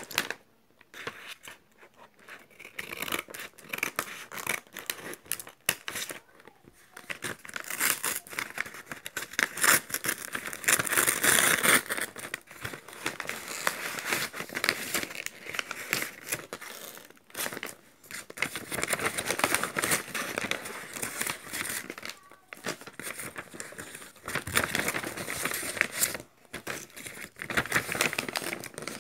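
A homemade paper bag being torn open and rummaged through by hand: paper crinkling, rustling and tearing in irregular bursts with short pauses.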